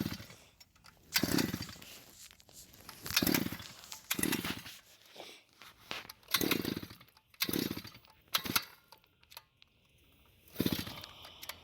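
Small gas engine of a power tool being started with the choke on, sounding in short bursts about once a second that die away between each, without settling into a steady run.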